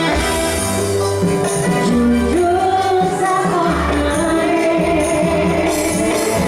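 A pop song with a singing voice carrying the melody over a steady bass beat and light percussion.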